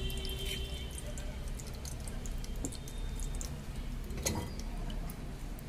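Steady low rumble of a lit gas burner under an aluminium pressure cooker, with scattered faint ticks and crackles as desi ghee melts and starts to heat in the pan, and one clearer click about four seconds in.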